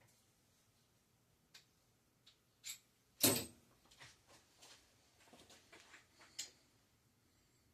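Scattered clicks and knocks from bicycle parts and tools being handled during a teardown, with one louder knock about three seconds in.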